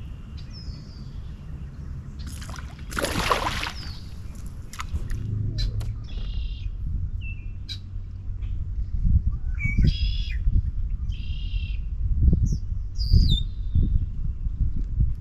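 Birds calling in short runs of chirps, starting about six seconds in and repeating several times, over a steady low rumble. A brief loud rushing whoosh comes about three seconds in.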